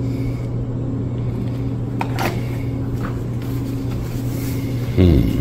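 A steady low hum with a constant pitch fills the room, with two soft clicks about two seconds in.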